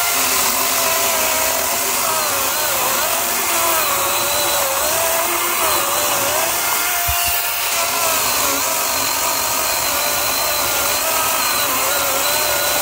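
DeWalt 60-volt FlexVolt 18-inch brushless chainsaw running flat out and sawing through a log, its electric motor whine steady but dipping in pitch again and again as the chain bites into the wood and then recovering.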